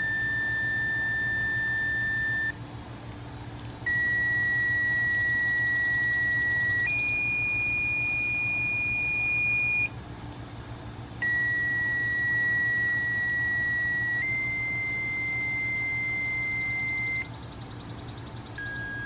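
A slow series of steady electronic tones, each held about three seconds, stepping abruptly from one pitch to another, with two short pauses between groups.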